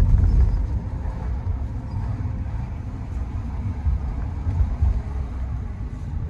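Low, steady cabin rumble of a Bentley Continental GT W12 driving off slowly, a little louder at the start: muted engine and road noise heard from inside the car.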